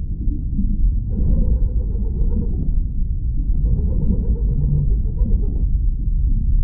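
Dark, deep ambient drone sound effect of the submechanophobia kind, a continuous low rumble. A brighter layer swells in over it twice, about a second in and again near the middle, each time for about two seconds.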